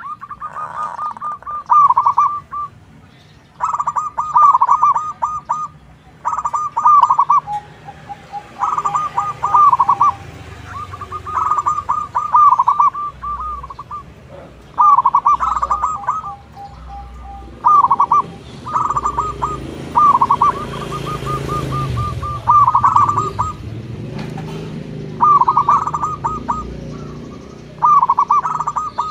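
Zebra doves (perkutut) cooing, with about a dozen rapid rolling phrases following one another a second or two apart.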